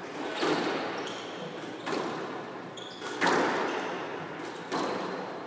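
Squash rally: the ball cracking off the rackets and the walls, four sharp hits roughly a second and a half apart, each ringing on in the echo of the court.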